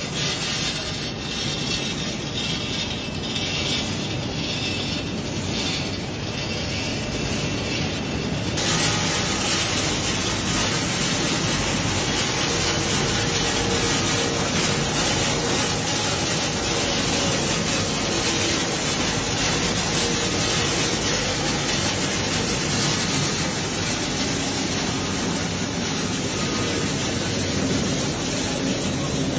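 Snack-chip production line machinery running steadily: conveyors and a rotating drum moving and tumbling chips, making a constant mechanical din. About a third of the way in, the noise grows louder and more hissy.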